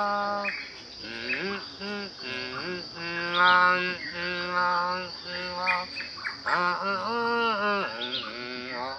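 A voice singing in long held notes that slide up and down in pitch, over a steady high chirring of crickets.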